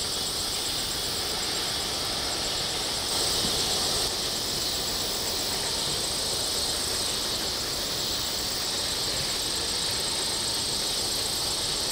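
A steady, high-pitched chorus of insects at dusk, with an evenly pulsing trill above it.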